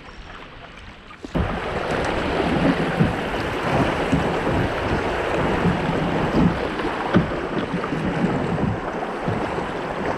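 Shallow river riffle rushing and splashing close around a kayak, starting suddenly and loudly about a second in; before that, quieter water lapping.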